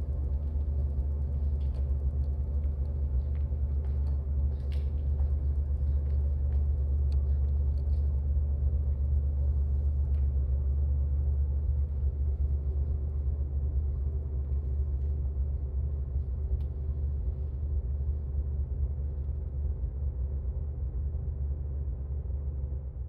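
Steady low electronic drone from the soundtrack, a deep hum with several held tones above it, with faint scattered clicks over it in the first half. It cuts off suddenly at the end.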